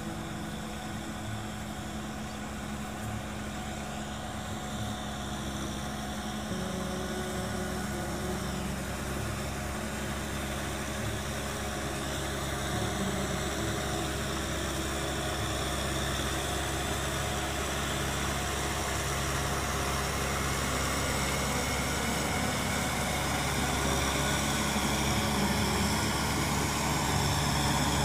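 Kubota tractor's diesel engine running steadily as it pulls a rotary tiller through wet mud. It grows gradually louder as the tractor comes closer.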